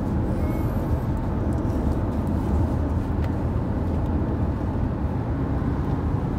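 Steady rumble of a car driving along a highway, heard from inside the cabin: tyre, road and engine noise.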